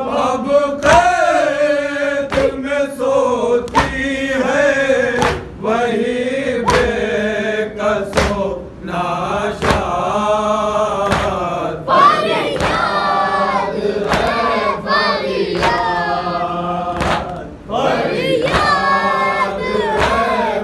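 Men chanting a noha in unison, a Shia mourning lament, while beating their chests (matam) in a steady rhythm of sharp slaps.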